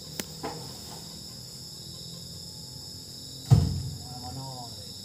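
Steady high drone of crickets and other insects, with one heavy thump about three and a half seconds in as an oil palm fruit bunch is dropped into the truck bed, and a sharp click just after the start.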